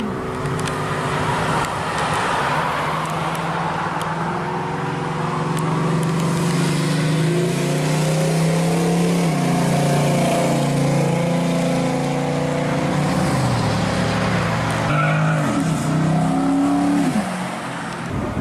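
Chevrolet Nova SS's V8 running as the car pulls out onto the road and drives past. Near the end the engine note falls and rises sharply as it revs and accelerates away.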